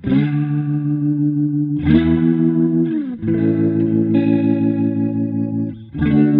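Electric guitar chords played through an Electro-Harmonix Lester K rotary-speaker emulation pedal, giving a spinning Leslie-style warble with a little drive. Chords are struck about four times and left to ring.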